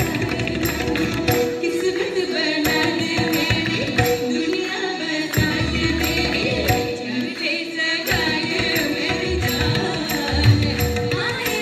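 Live Hindi film song: female voices singing over tabla and keyboard, with the deep bass strokes of the tabla coming in and dropping out in stretches.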